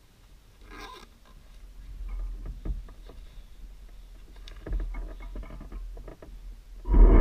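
Scattered light clicks and knocks over a faint hum, then near the end the remote-control model bus's motor starts suddenly and loudly, its whine rising in pitch as it speeds up.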